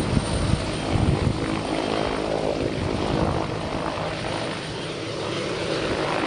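Turbine helicopter hovering low, its engine and rotor running steadily.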